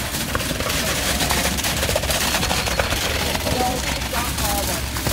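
Truck-mounted concrete pump running while pouring a slab: a steady low engine drone under a rapid, irregular clatter of knocks.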